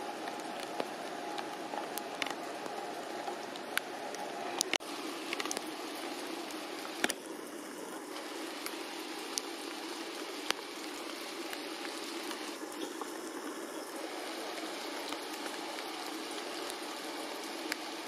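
Steady rain falling on garden foliage, with occasional sharp drops striking close by.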